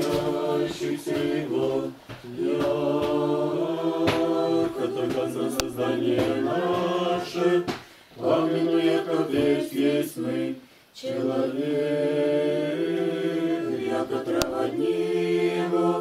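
Unaccompanied Orthodox church chant sung by a small group of voices in long held phrases, with short breaks between phrases about two, eight and eleven seconds in.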